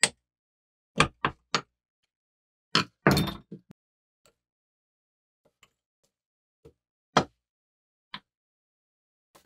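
A steel rod or screwdriver prying and knocking at the riveted handle of a rusty bowie knife on a wooden workbench. There are several sharp knocks close together about a second in, a short clatter around three seconds, and two single knocks near the end.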